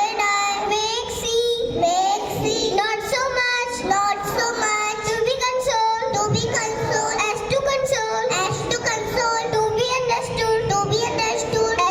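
Young children singing a song, with a sustained melodic line throughout.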